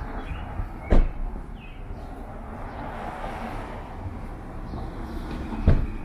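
City street ambience: a steady hum of traffic, broken by two sharp thumps, one about a second in and one near the end.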